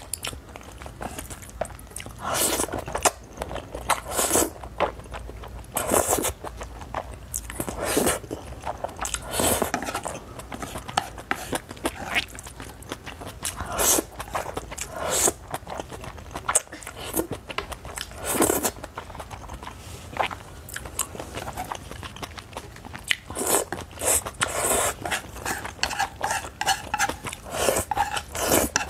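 A person slurping and chewing noodles in thick black sauce, with a string of short wet slurps, one every second or two, and chewing in between.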